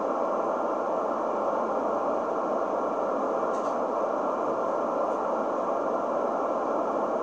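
Steady rushing FM receiver noise from a Kenwood 2-metre transceiver's speaker on 146.565 MHz, with the squelch open and no readable signal. It cuts in and out abruptly.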